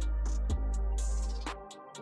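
Electronic background music with a steady beat and a deep bass that drops out near the end, with a rising hiss sweep just before it.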